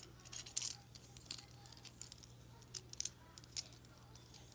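Small metal pistol parts clicking and clinking as they are turned over in the fingers: the metal rear rail knocking against a polymer pistol frame, in irregular light taps, over a faint steady low hum.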